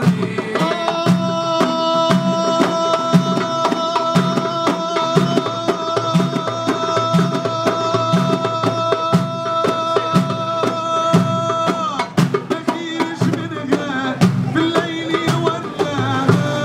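North African percussion ensemble playing: bendir frame drums and a darbuka beat a steady rhythm under a long held note, and from about 12 seconds in a male voice sings with a wavering, ornamented line.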